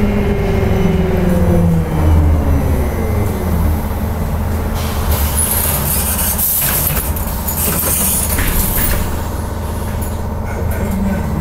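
Interior of a moving trolleybus: steady road rumble, with the electric traction motor's whine falling in pitch over the first few seconds as it slows. A high hiss of air runs from about five to nine seconds in.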